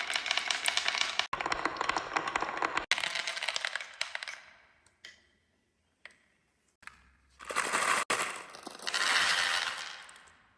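Marbles clattering down a marble run, a dense rattle of many small clicks. After about four seconds it thins to a few single clicks, then another rush of clatter comes near the end.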